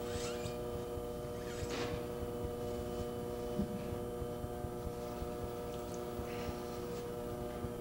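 A steady electrical hum made of several even tones, with a few faint, brief soft swishes on top.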